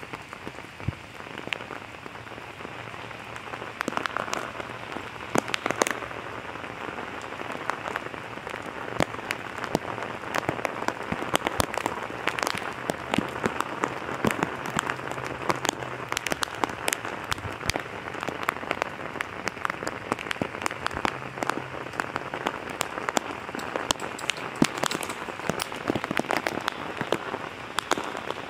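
Heavy rain pouring onto a paved driveway: a dense, steady hiss with many sharp drop hits close by, growing louder about four seconds in.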